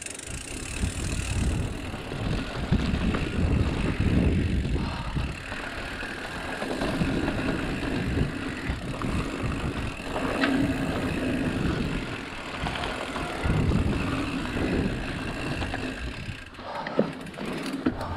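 Mountain bike being ridden along a dirt trail: tyres rolling and the bike rattling over the ground, with a heavy low rumble that swells and eases.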